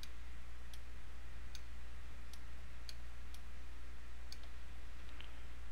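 Computer mouse button clicking: about nine short, sharp clicks at uneven intervals of roughly half a second to a second, as nodes are picked up and moved. A steady low hum runs under them.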